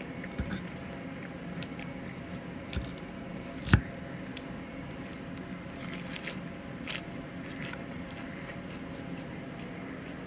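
Eating at the table: a metal fork clicking against a plate and mouthfuls of salad and vegetables being chewed, with one sharp clink a little under four seconds in. A steady low hum runs underneath.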